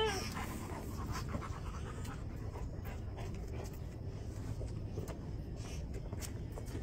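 A dog panting steadily.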